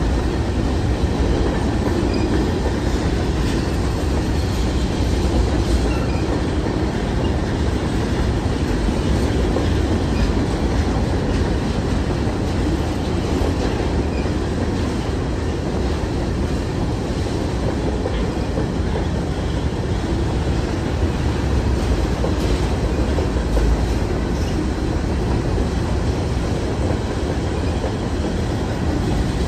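Covered hopper cars of a CN freight train rolling steadily past at close range, steel wheels running on the rails with no let-up.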